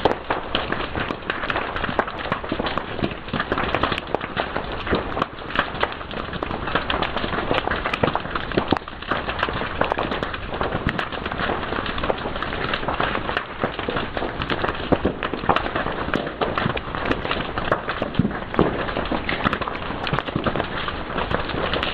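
Fire crackling steadily, with a dense run of small snaps and frequent sharper pops.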